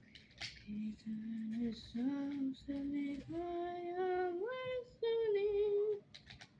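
A girl singing a short wordless tune: a string of held notes that step upward in pitch, then ease down a little on the last note.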